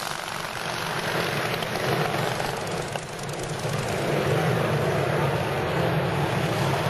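Engines of pre-1910 board-track racing motorcycles running at racing speed as they race past, the sound dipping about three seconds in and then growing louder.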